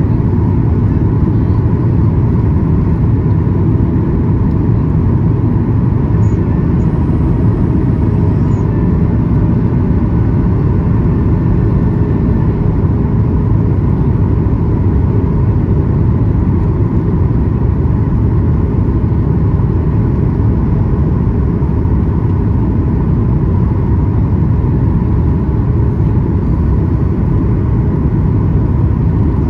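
Steady cabin rumble of a Boeing 737-800 in flight, from its CFM56-7B engines and the airflow over the fuselage, heard from a window seat. It is an even, deep noise at a constant level, with a faint steady hum near the middle of the range.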